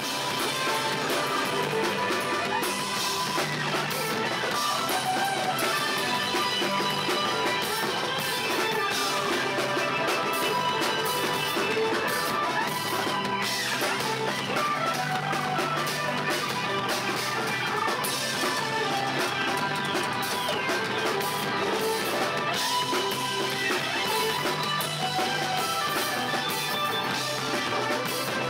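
Live instrumental math-rock band playing: busy electric guitar over drum kit, loud and dense, with several falling pitch slides.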